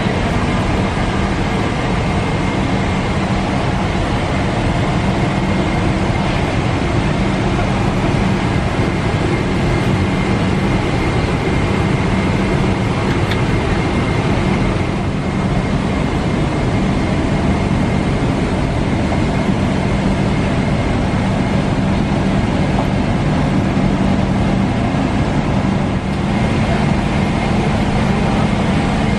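Steady airliner cabin noise inside a Boeing 777: an even rushing hum with a constant low drone and a faint high whine.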